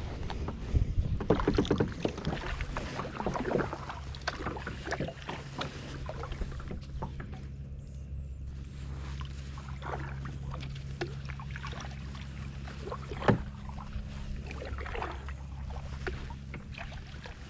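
Kayak under way on open water: splashing and knocks against the hull for the first couple of seconds, then a steady low hum from about two and a half seconds in over water noise, with one sharp knock about thirteen seconds in.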